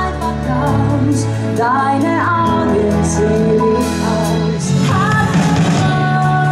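Live pop band: a woman singing lead in long held notes with vibrato, over electric guitar, bass guitar, keyboard and a drum kit keeping time with steady cymbal ticks.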